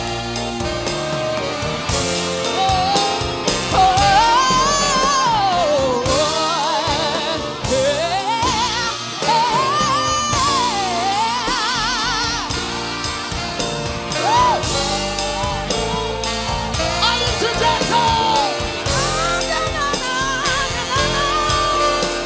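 A woman singing lead into a microphone over a live band, her voice sweeping up and down in long runs with vibrato.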